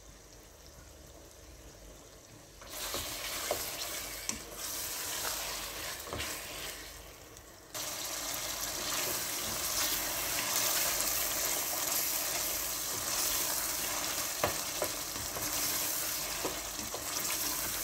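Tomato and spice masala frying in oil in a metal pot, sizzling while a slotted metal spatula stirs it, with a few clinks of the spatula against the pot. Quiet for the first few seconds, the sizzle starts about three seconds in and turns louder and steady from about eight seconds.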